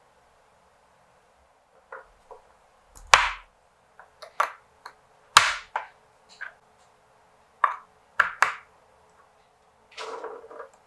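Plastic lipstick tubes being capped and set down on a wooden tabletop: a series of sharp clicks and knocks, irregularly spaced, then a short scraping rustle near the end.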